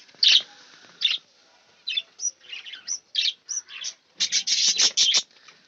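Pet budgerigars chirping in short, high calls, with a quick run of chirps about four seconds in.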